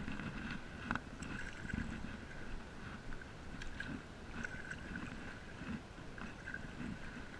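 Paddle strokes and water splashing against an ISLE Explorer inflatable stand-up paddle board, coming in uneven surges with a few small clicks.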